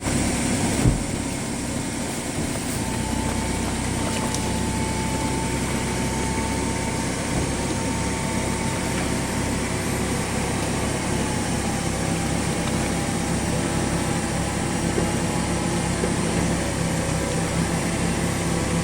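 Vehicle engine running steadily with a low, even drone, and a faint thin tone holding for several seconds early in the stretch.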